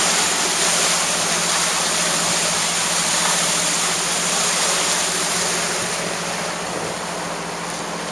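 Wind and water rushing past a moving motorboat in choppy water, with the boat's engine droning steadily underneath. The rush eases a little after about six seconds.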